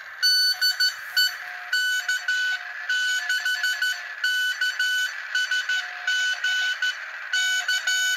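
Bitx40 40-metre transceiver receiving a Morse code signal: a beeping tone of fixed pitch keyed on and off in short and long elements over steady receiver hiss. The receiver is working again with an analog VFO standing in for its dead Raduino.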